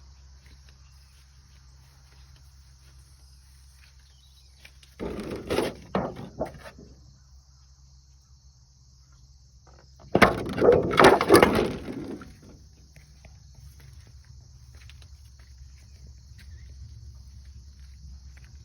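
Steady chirring of crickets or other insects, with two loud rough bursts of noise, one about five seconds in and a longer one about ten seconds in, each lasting one to two seconds.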